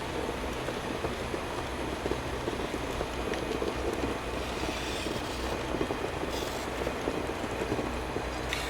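Rail grinding machine working along the track, its grinding wheels on the railhead making a steady, dense grinding noise.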